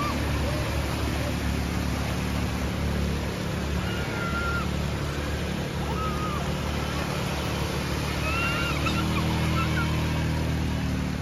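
ATV engine running as a quad bike drives through a shallow stream, with water splashing and rushing around its wheels. The engine note shifts in pitch about nine seconds in.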